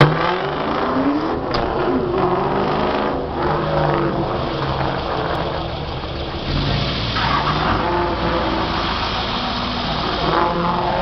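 Volvo 245 wagon's engine running at low revs, heard from inside the car. A bit past halfway through the engine and rumble pick up as the car moves off.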